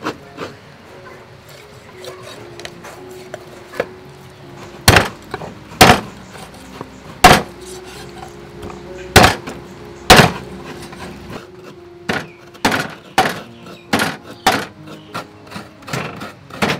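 Meat cleaver chopping raw chicken on a wooden chopping board: five heavy chops about a second apart, then a run of lighter, quicker knocks. Soft background music with held notes underneath.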